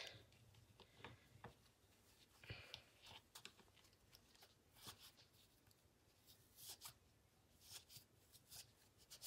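Faint, irregular rustling and scratching of a fabric bone and its stuffing as filling is pushed inside with a pen, in short scrapes scattered through the quiet.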